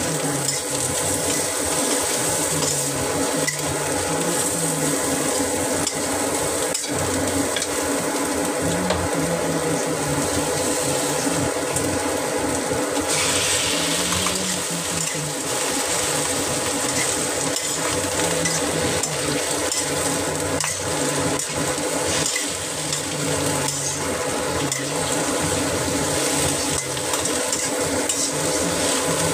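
Celery and cashew nuts stir-frying in a wok: a steady sizzle, with the spatula scraping and knocking against the pan as the vegetables are tossed.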